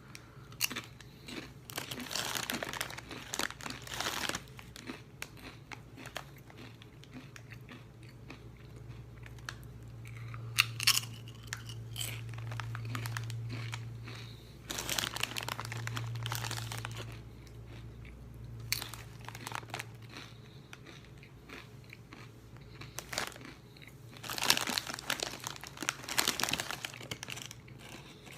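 Close-up crunching and chewing of Doritos tortilla chips, in several bouts of crisp crunches with quieter chewing between.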